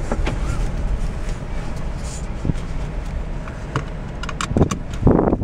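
Steady low rumble of outdoor background noise, with a few sharp clicks about four seconds in and a louder burst near the end.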